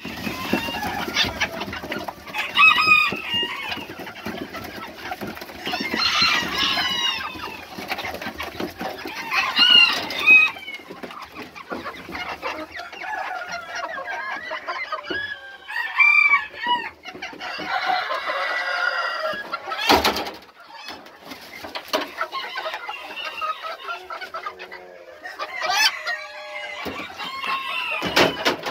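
Chickens clucking and calling in short bursts every few seconds, with a longer rooster crow about two-thirds through. A sharp knock comes just after the crow.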